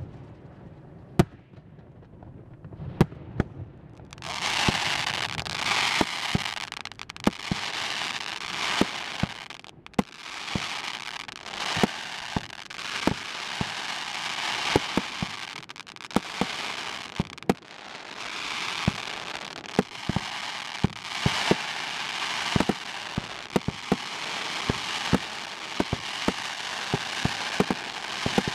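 Aerial fireworks shells bursting overhead. A few spaced bangs come first, then about four seconds in it thickens into a rapid barrage of bangs over a dense crackle from crackling stars, as the finale begins.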